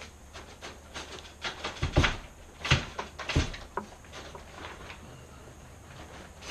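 Hard knocks and clunks from handling two-piece sailboat mast sections, with lighter clicks between: the upper and lower sections being worked apart once the securing screw is out. The loudest knocks come about two, two and a half, and three and a half seconds in.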